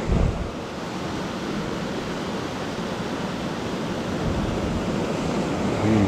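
Small mountain stream's water rushing over rocks, a steady even hiss.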